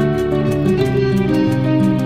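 Instrumental background music with plucked guitar, a steady run of held notes that change pitch every half second or so.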